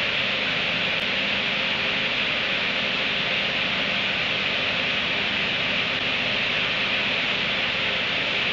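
Steady, even hiss that does not change, with a faint low hum under it; no hiccup or other distinct sound stands out.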